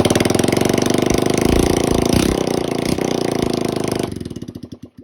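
1982 Suzuki DR250's single-cylinder four-stroke engine running with no exhaust fitted, firing out of the bare exhaust port as a rapid string of loud, separate pops: a "bleh, bleh, bleh". It rises a little around the middle, then the pops slow and the engine dies just before the end.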